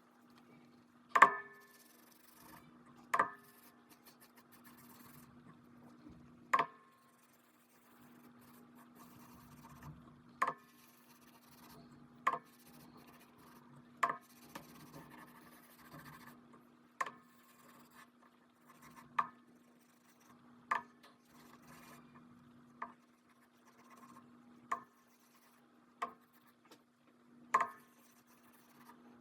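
Hand work on a wooden marquetry panel: soft rubbing with a sharp tap or click about every two seconds, over a steady low hum.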